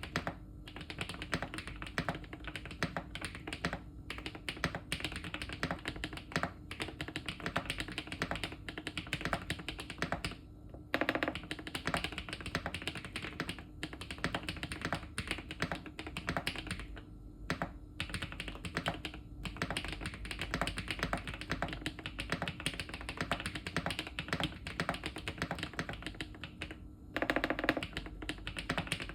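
Fast, continuous typing on a Weikav Max102 mechanical keyboard with MMD Princess tactile switches: a dense stream of key clicks, broken by a few short pauses.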